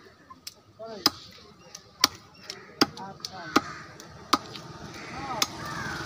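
A heavy chopping knife chopping raw chicken on a wooden tree-stump block. There are six sharp, loud chops, about one every three-quarters of a second, with lighter taps in between.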